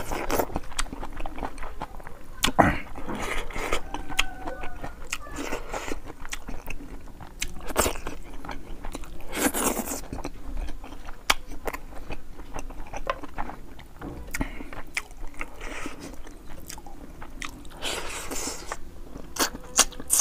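Close-miked eating sounds from a person eating boiled fish head and rice by hand: wet chewing with many quick mouth clicks and smacks, and several louder sucking bursts as he takes bites and sucks at the food and fingers.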